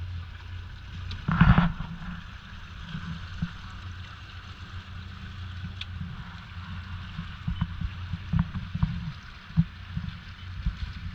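Motorboat running steadily on the water, a low engine hum with wind and water noise, with one loud thump about a second and a half in and scattered knocks later, typical of the hull slapping waves.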